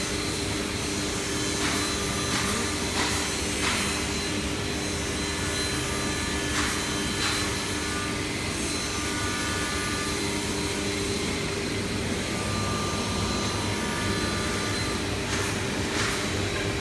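CNC nesting router with a 12-tool automatic tool changer cutting panels on a test run: a steady spindle hum over a hiss of air and extraction, broken every few seconds by short sharp knocks.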